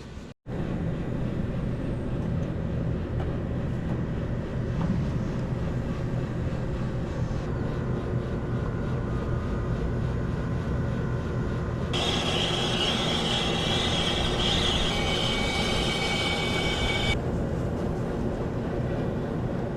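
Steady mechanical drone with a low hum, and a loud hiss with a high whistle-like tone laid over it for about five seconds, starting about twelve seconds in.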